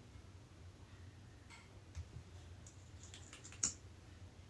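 Faint scattered clicks and taps of plastic lip gloss packaging being handled, with a quick cluster of sharper clicks around three to three and a half seconds in.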